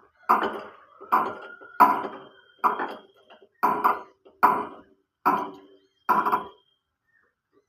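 A series of about seven sharp metallic knocks, evenly spaced a little under a second apart, each ringing briefly.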